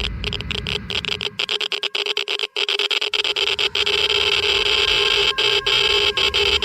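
Geiger counter crackling at a high count rate: a dense, loud stream of clicks with a steady tone underneath.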